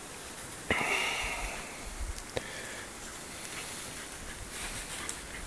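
A slurped sip of hot tea: a click, then a hissy slurp lasting about a second, starting just under a second in. A few faint clicks and a short rustle follow.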